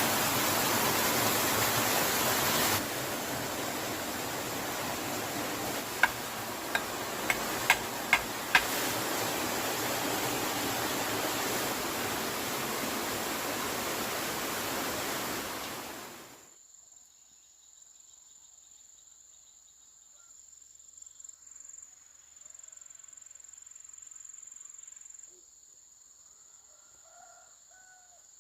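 A steady, loud rushing noise with a few sharp clicks in it cuts off suddenly about halfway through. It gives way to a quiet forest background: a steady high-pitched insect drone with a few faint bird calls near the end.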